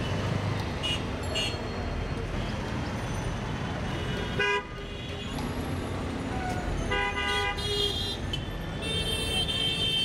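Dense road traffic running, with vehicle horns honking over it several times: one about four and a half seconds in, a longer one around seven seconds, and a higher-pitched one near the end.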